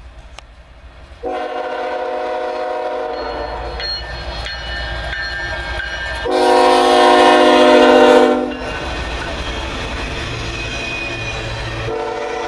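Freight diesel locomotive's air horn sounding: a long chord from about a second in, then a louder blast as the locomotive passes close. After that comes the low rumble and clatter of double-stack intermodal cars rolling slowly past, and another horn blast starts near the end.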